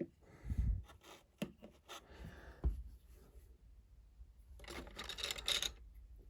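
Lego pieces and figures being handled: scattered plastic clicks and knocks with low thumps in the first few seconds, then a scraping rustle lasting about a second near the end.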